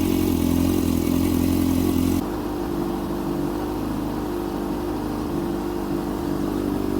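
2003 Kawasaki ZX6R 636's inline-four engine idling steadily after an oil change. About two seconds in, the sound changes abruptly to a quieter, slightly different steady note.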